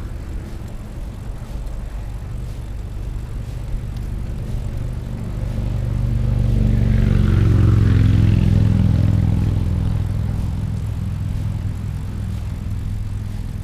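Steady wind and road rumble on the microphone of a recumbent trike riding along a highway shoulder. About five seconds in, a louder rush with a low hum builds up, peaks around eight seconds and fades away again.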